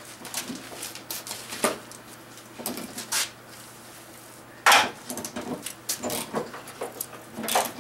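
Irregular knocks and metallic clinks of hand tools and parts being worked loose on a Chevrolet Trailblazer during a teardown. The loudest knock comes a little under five seconds in.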